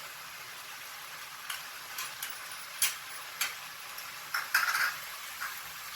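Chicken sizzling in a pan of masala while a spoon stirs it, clicking and scraping against the pan several times.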